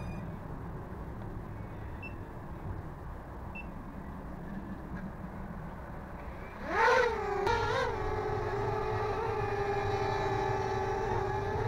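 Small toy quadcopter drone's motors spinning up with a quick rising whine about seven seconds in. The whine peaks briefly, then settles into a steady whine as the drone lifts off and hovers.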